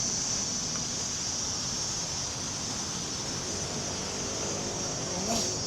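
Steady, high-pitched drone of insects (crickets or cicadas) over an even background hiss.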